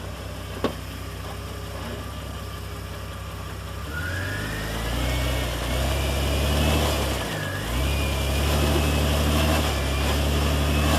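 Off-road 4x4's engine running at low revs, then picking up about four seconds in as it pulls the vehicle slowly over rocks, with one short dip in revs later on. A faint high whine rises and falls along with it.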